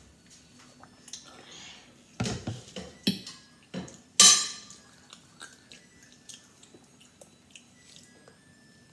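Table-side eating noises: several knocks and clinks as a plastic water bottle is set down and a fork works on a plate of scrambled eggs with cheese, the loudest a single sharp clink about four seconds in. Then soft chewing and small clicks.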